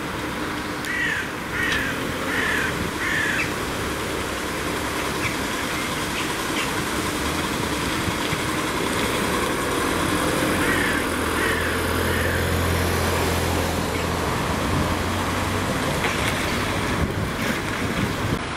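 Diesel engine of a first-generation Mercedes-Benz Sprinter van running as it drives slowly up and past, its low hum growing louder in the middle, over steady street noise. A bird chirps in two short series, four notes near the start and three near the middle.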